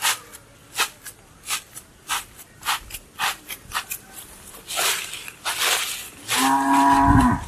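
Bare feet treading a mound of wet potter's clay on a plastic sheet: a steady rhythm of soft slaps and squelches, about three every two seconds, with the sheet rustling. Near the end a loud drawn-out call lasts about a second and drops in pitch as it stops.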